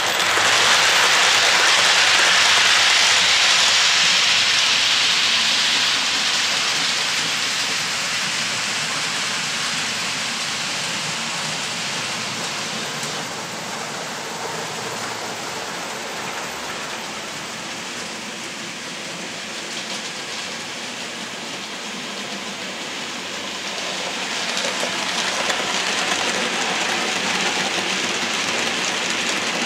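Model trains running on the layout's track: a steady hissing rattle of small wheels on rails, loudest at the start as the model class 47 and its coaches pass close. It fades through the middle, then builds again about three-quarters of the way through as the model HAA coal hopper wagons run by.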